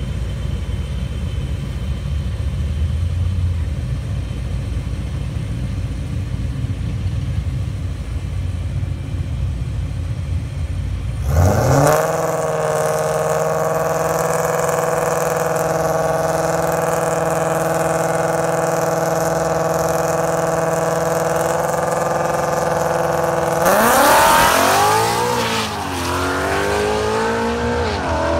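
Supercharged Ford Coyote 5.0 V8 in an S550 Mustang at the drag strip starting line: a rough, rumbling idle, then a sudden rev to a steady high rpm held on the line for about twelve seconds. It then launches hard on a quarter-mile pass, the engine note climbing, dropping back at each gear change and climbing again as the car pulls away.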